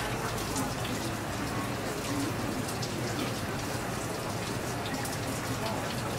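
A thin stream of running tap water splashing steadily onto geoduck meat as hands rinse and clean it, with many small wet ticks.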